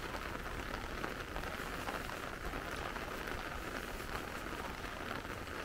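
Soft rain falling: a steady, even hiss.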